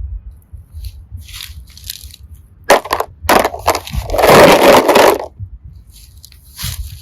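Slime full of small plastic heart and seashell pieces being squeezed and handled, with scattered crackles and clicks and a loud squishing crunch about four seconds in.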